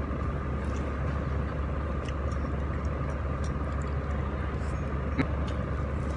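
A steady low background hum, with a few faint soft clicks and mouth sounds from a person eating with her fingers and chewing.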